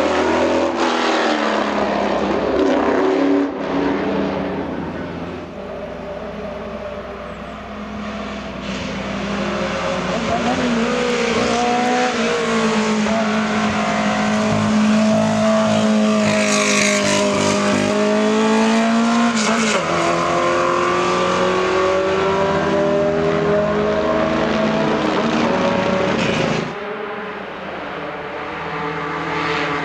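Racing sports car engines at full throttle on a hill-climb road. First a car goes by, then the 1968 Abarth 1000 SP's small four-cylinder engine revs high, climbing in pitch, dropping at a gear change and climbing again.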